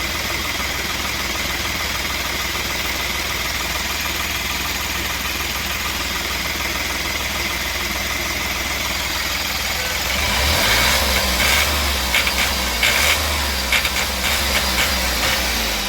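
Ashok Leyland Dost's three-cylinder diesel engine running steadily, then about ten seconds in getting louder and uneven, with irregular knocks. The engine has a misfire and jerks under revs, a fault traced to a failing crankshaft position sensor.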